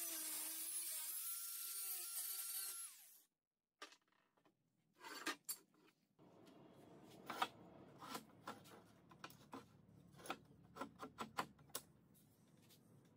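Angle grinder cutting a steel tube, then spinning down and stopping about three seconds in. After a short silence, scattered light clicks and taps of metal strips being handled on a wooden bench.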